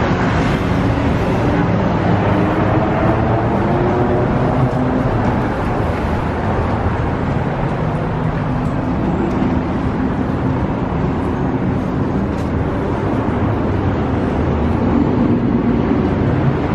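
Steady city street traffic noise: road vehicles running nearby, with a low engine drone under the hiss of traffic.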